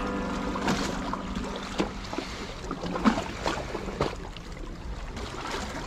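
Seawater lapping and sloshing among concrete breakwater blocks, with a few scattered clicks and knocks.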